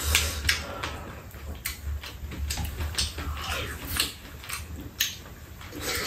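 Eating sounds at a meal of rice-cake soup: scattered clicks of spoons and chopsticks against bowls, with slurping and chewing, over a steady low hum.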